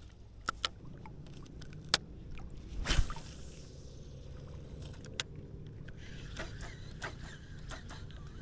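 Shallow water sloshing and lapping around a wading angler's legs over a low steady rumble, with a few sharp clicks and a louder swish about three seconds in.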